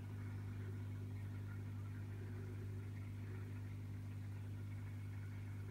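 Aquarium pump humming steadily at a low, even pitch.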